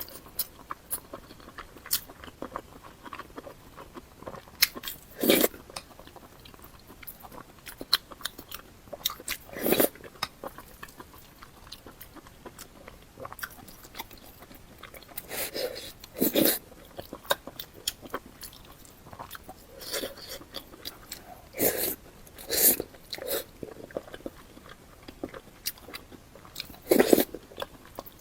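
Close-up eating sounds: a person biting into and chewing crunchy food, with many small irregular crunches and a louder bite every few seconds.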